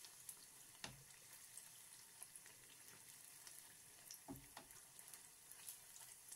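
Faint sizzle and crackle of a custard-filled doughnut deep-frying in oil in a pot, with two soft knocks, about one second and four seconds in, as tongs turn it.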